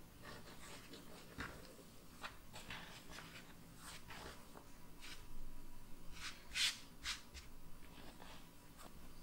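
Hands and a bench scraper working bread dough on a floured wooden board: a run of soft scrapes and brushing swishes, the loudest two or three about six and a half to seven seconds in.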